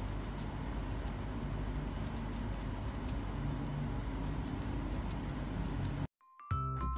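Steady background noise with a low hum and faint scattered ticks, cutting off abruptly about six seconds in. After a short silence, background music with clear, bright notes starts near the end.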